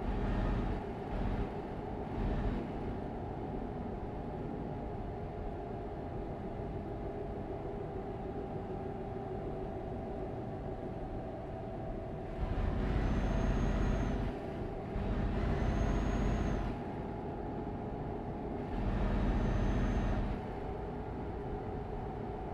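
Steady road and engine noise of a moving car, with a few brief louder swells early on and three louder rushing swells in the second half, each opening with a short high squeal-like tone.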